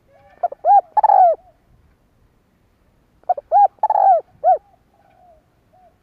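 Spotted dove cooing close to the microphone: two phrases of several short, arched coos, about three seconds apart.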